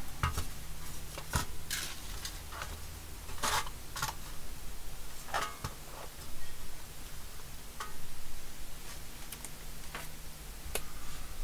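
Irregular clicks and light clinks of small hardware and the metal front panel being handled on a workbench, with a few louder knocks.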